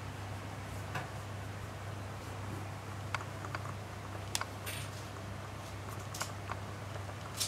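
A steady low hum with a few faint, scattered clicks and rustles as a hand strokes a cat's fur on a leather seat.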